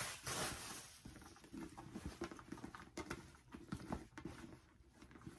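A handbag's white protective wrapping rustling as it is pulled off, loudest in the first half-second. Softer rustles and a few light clicks follow as the bag is handled.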